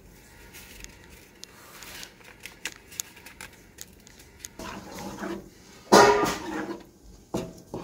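Wooden spoon stirring thick red chili sauce in a frying pan, with soft taps and rustles from powder packets first, then stirring from about four and a half seconds in and a louder burst about six seconds in.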